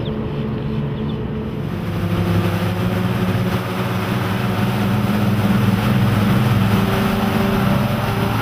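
Twin Volvo Penta 4.3-litre V6 inboard engines of a Cruisers Yachts 280 CXi running steadily at planing speed. About a second and a half in, a rushing hiss of wind and water joins the engine drone.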